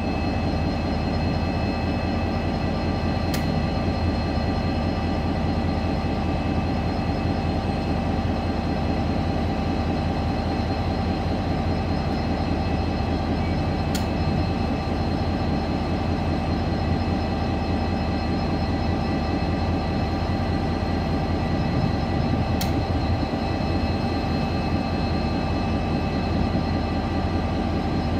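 DFB-class diesel-electric locomotive idling steadily at a standstill, a constant low engine hum with steady whining tones above it.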